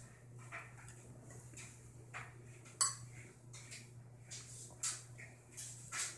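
Faint clicks, taps and light scrapes of a plastic baby spoon as a baby is spoon-fed applesauce, with one sharper clink about three seconds in.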